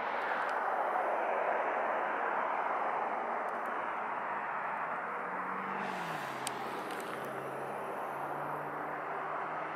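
Road traffic passing: a steady rush of tyre and road noise, loudest in the first few seconds, with a low engine hum that drops in pitch about halfway through and then holds.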